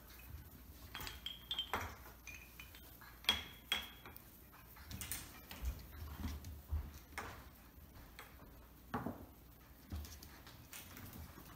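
Scattered light knocks and clinks as puppies jostle a PVC-pipe play frame hung with wooden dowels and plastic cups, a few with a brief ring.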